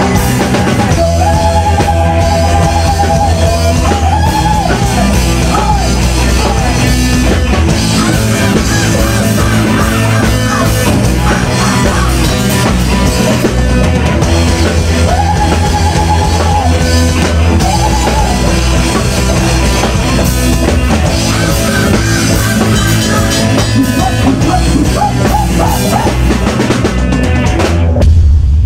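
Live rock band playing, with drum kit, electric guitar and bass, and a melody line held in long notes. A loud hit comes near the end.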